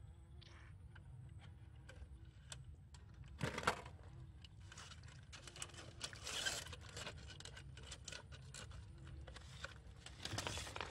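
Rustling and scraping of plastic mesh netting being handled and pulled over a fish trap, in irregular bursts, the loudest about three and a half seconds in.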